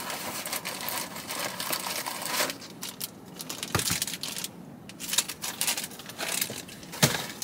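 Rustling of a cardboard Happy Meal box and crinkling of a toy's plastic wrapper as hands dig through the box. Steady rustling for the first couple of seconds, then scattered crinkles and a few sharp knocks.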